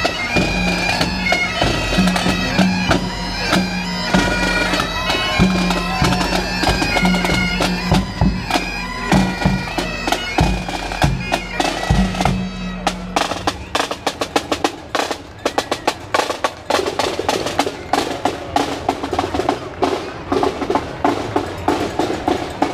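Pipe band playing: bagpipes sounding a steady drone under a chanter melody, with drums. About thirteen seconds in, the pipes stop and the drumming and beats go on.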